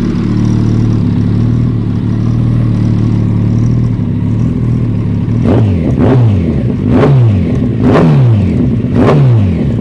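Motorcycle with a Hindle carbon-fibre exhaust can idling steadily, then blipped about five times, roughly once a second, the revs shooting up and falling back to idle each time.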